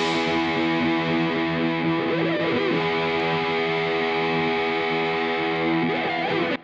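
Background rock music: a distorted electric guitar chord held and ringing steadily, with brief pitch slides about two seconds in and again near the end.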